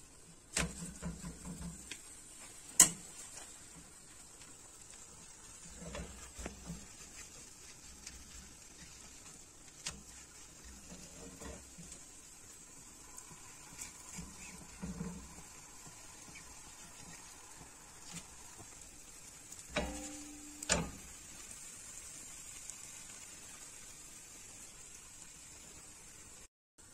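A crepe frying in a non-stick pan with a faint steady sizzle, broken by scattered light clicks and soft knocks as it is lifted and turned in the pan; the sharpest click comes about three seconds in.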